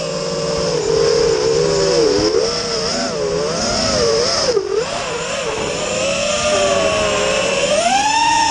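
Small FPV racing quadcopter's brushless motors and propellers whining, the pitch rising and falling constantly with the throttle, dipping sharply about halfway through and climbing steeply near the end.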